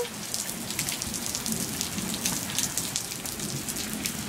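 Steady rain during a thunderstorm, an even hiss with a patter of individual drops.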